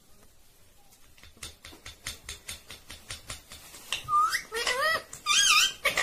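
A rose-ringed parakeet chewing on a blue rubber toy: a run of quick clicks and taps, then from about four seconds in a few loud squeaky notes that bend up and down in pitch.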